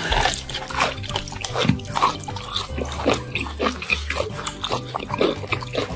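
Electronic music with a steady, stepping bass line, overlaid by a rapid, irregular string of short, sharp sounds.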